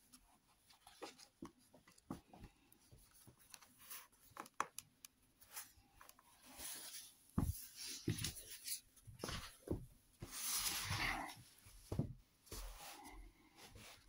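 Pages of a large hardcover book turning and the book being handled: soft paper rustles and light taps, with a few dull thumps around the middle as the book is closed and moved, and a longer rustle of cover and paper sliding a little after.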